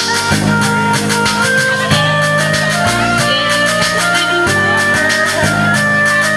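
Music with a steady beat and a melody of held notes that step from pitch to pitch.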